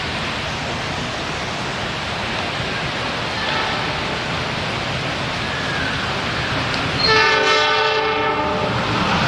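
Heavy rain hissing steadily, then about seven seconds in a train horn sounds one long blast of about a second and a half. A low train rumble starts to build near the end.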